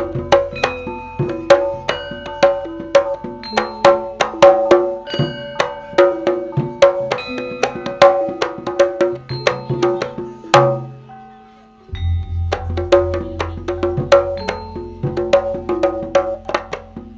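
Gamelan ensemble playing an instrumental jula-juli passage: quick, ringing struck metal notes over low drum beats. It stops for about a second just past the middle, then starts again.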